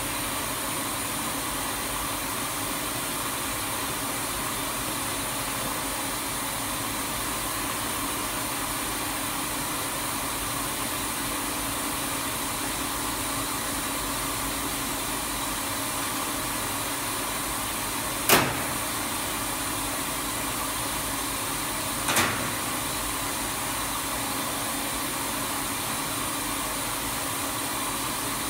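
Wet deburring machine with a wide sanding belt and planetary disk brush heads running steadily, giving an even mechanical noise. Two sharp knocks about four seconds apart come about two-thirds of the way through.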